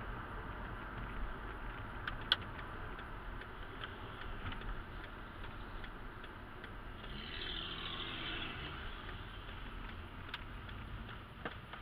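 Car driving in town, heard from a dashcam inside the cabin: a steady low rumble of engine and tyre noise, with a few sharp clicks and rattles, and a brief swell of hiss a little past halfway.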